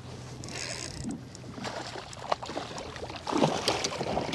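Water splashing against a kayak while a hooked striped bass is landed. A few sharp knocks, then a louder flurry of splashing and knocking about three seconds in.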